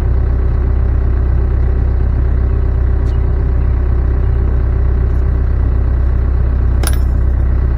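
Steady low hum of the homemade cylinder machine's power unit running, with a single sharp knock about seven seconds in.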